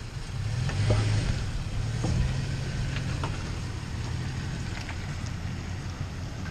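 Toyota Tacoma pickup's engine running at a low, steady hum as the truck creeps away at full steering lock. It fades a little after about four seconds as the truck draws away.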